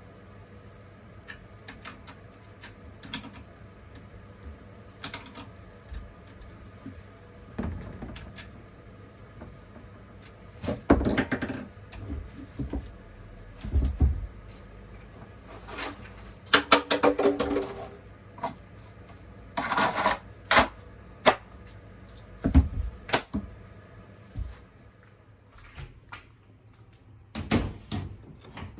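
Irregular clicks, knocks and short rattles of chainsaw parts being handled and fitted by hand during assembly, with a few louder clatters; the engine is not running.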